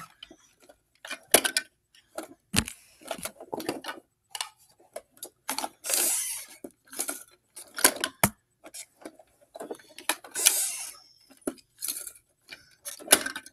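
Small plastic toy garbage bins and a toy recycling truck handled by hand: a string of light plastic clacks and knocks, with a few brief scraping sounds.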